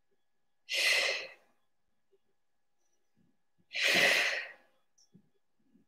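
A woman breathing out hard twice, about three seconds apart, in short breathy exhales with no voice: the effort breaths of dumbbell reps.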